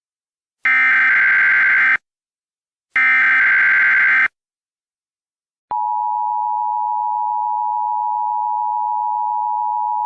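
Emergency Alert System signal: two short buzzy bursts of the SAME digital data header about a second apart, then, about six seconds in, the steady 853/960 Hz two-tone attention signal starts and holds. The sequence marks the start of a broadcast emergency alert, ahead of the spoken message.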